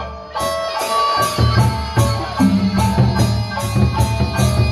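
Sasak gendang beleq ensemble playing: large barrel drums under a steady beat of clashing cymbals, with pitched melody notes above. The music dips briefly at the very start, then carries on at full strength.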